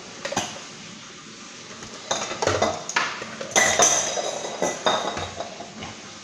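Stainless-steel bowls and kitchen utensils clattering and clinking as they are moved about on a stone countertop, a run of knocks from about two seconds in, some ringing briefly.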